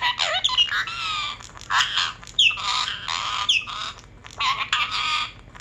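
Pet parrot squawking in a run of about six harsh, raspy calls, some with short whistled glides in them.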